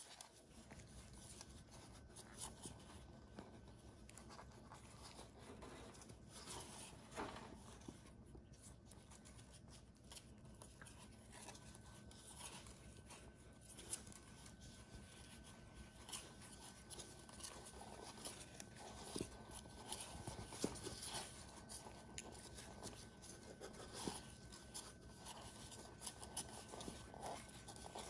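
Near silence with faint rustling and soft clicks: newborn puppies nursing and squirming against their mother's fur.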